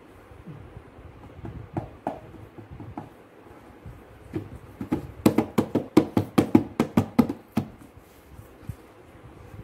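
A toddler's hands slapping a cardboard infant-formula box like a tabla. First a few scattered taps, then a quick run of about a dozen pats, roughly five a second, for a couple of seconds near the middle.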